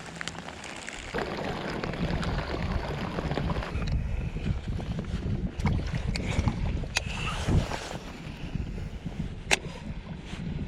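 Wind buffeting the microphone in a low, uneven rumble that swells about a second in, with a few sharp clicks and knocks scattered through it.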